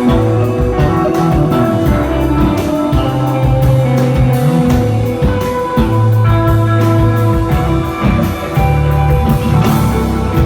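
Live stoner/desert rock band playing: a spacey, droning guitar over long held bass notes, with a drum kit keeping time in frequent cymbal and drum hits.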